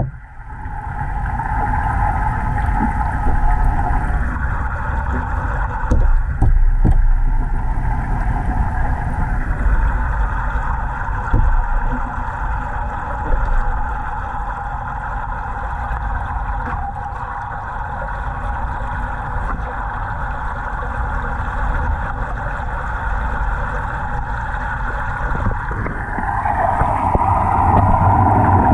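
Steady underwater rush and rumble of aerated water in a large aquarium tank, heard through a submerged camera, with a few short knocks in the first half. Near the end it grows louder as the camera nears a curtain of rising air bubbles.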